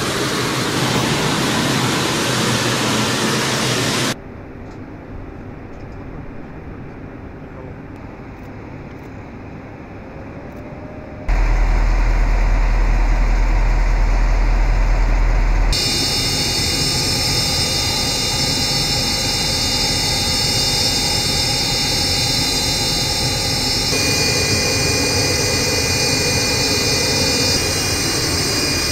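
Airfield noise cut together from several shots: a steady rushing noise, a quieter stretch, then a vehicle engine with a deep low rumble. About 16 seconds in it gives way to a steady aircraft jet-turbine whine with several high tones.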